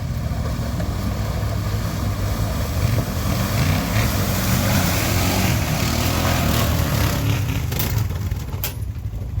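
Side-by-side utility vehicle's engine running, its pitch rising and falling as the throttle is worked, with a few sharp clicks near the end.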